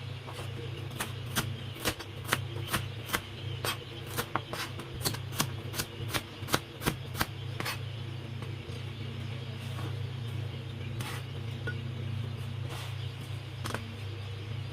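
Kitchen utensil sounds: sharp clicks and knocks of a utensil against cookware, about two to three a second at first and sparser in the second half, over a steady low hum.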